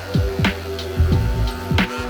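Background electronic music with a steady beat of deep drum hits that drop sharply in pitch, over sustained held notes.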